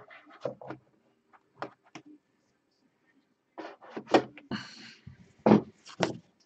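Trading cards and a card box being handled on a tabletop: scattered light clicks and knocks, with a few louder thumps in the second half.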